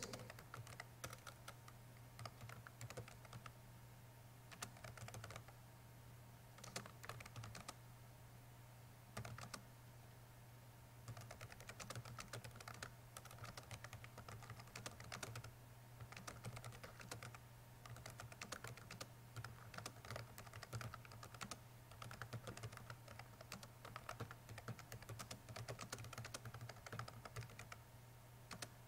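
Faint typing on a computer keyboard: irregular runs of key clicks broken by short pauses, over a steady low hum.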